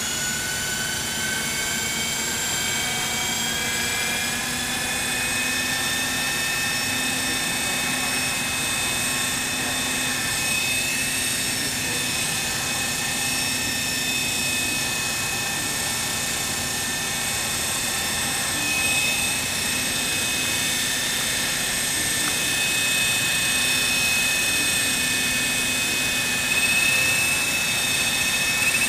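Small autonomous helicopter hovering: a steady whine from its engine and rotors with many overtones, rising in pitch over the first few seconds and then holding level.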